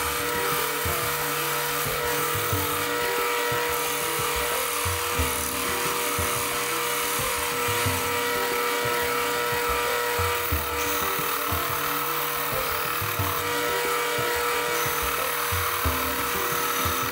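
Wood lathe running with a steady motor hum while a hand-held turning chisel braced on the tool rest cuts the spinning oak workpiece, a continuous scraping noise with small changes as the tool moves along.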